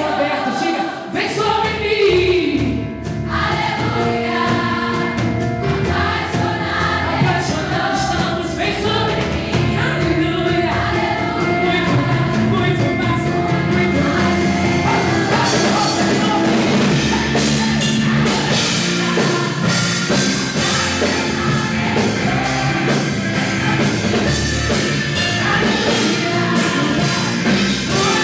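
Live worship song: voices singing together over band accompaniment. About halfway through, drums and cymbals come in and the music grows fuller.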